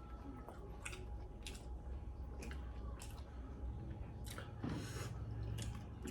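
A person chewing and biting into spicy chicken wings, with short wet clicks and squishes of the mouth at uneven intervals over a low steady hum.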